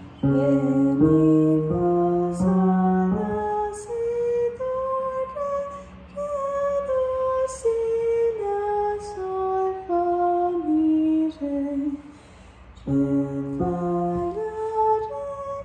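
Ear-training exercise in D-flat major: a few chords set the key, then a woman sings a stepwise melody that climbs and then falls back down to a low note. Near the end the chords sound again and she starts another phrase.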